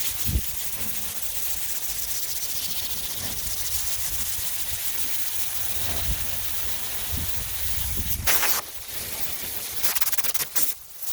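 Sandpaper on a sanding block rasping steadily over a primed hood as it is block sanded by hand through high-build primer. About eight seconds in comes a brief, louder hiss, like a blast of compressed air blowing the sanding dust off, with a few shorter hisses near the end.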